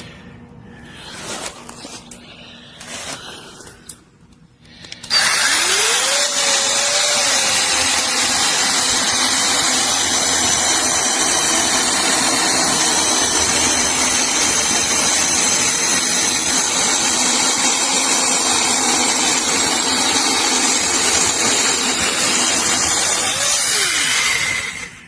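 WORFCI 8-inch battery-powered brushless mini chainsaw. After a few handling knocks, its motor spins up with a rising whine about five seconds in and runs steadily at full speed for about twenty seconds. Near the end it winds down with a falling pitch and stops.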